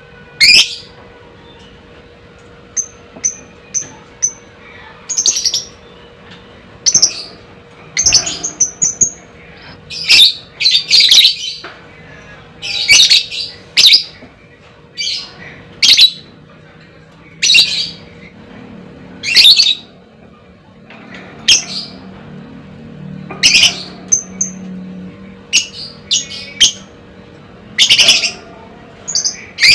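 Lovebird giving short, shrill, piercing calls in separate bursts about every second or two, some in quick doubled runs.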